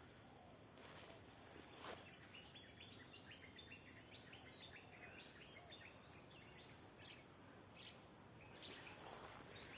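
Faint field ambience: insects droning at one steady high pitch. In the middle, a bird gives a quick run of short chirping notes.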